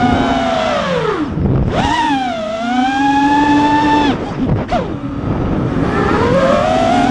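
FPV quadcopter's brushless motors and propellers whining, the pitch falling away as the throttle is chopped about a second in, climbing back up, dropping again around four seconds with a brief blip, then rising near the end.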